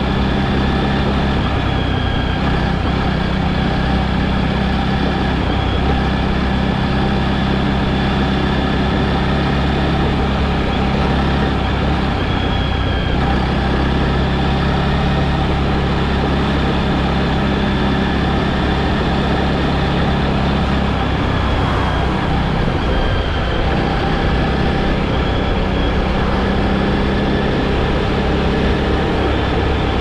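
Steady engine drone and road noise of a moving vehicle, heard from inside the cabin while it travels at an even speed.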